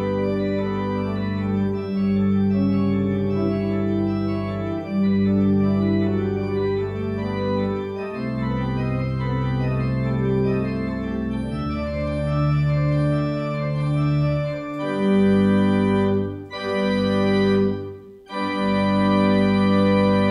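Organ playing slow, sustained chords over a deep held bass note, the harmony changing every second or two. The sound drops out very briefly twice about three quarters of the way through, then the chords resume.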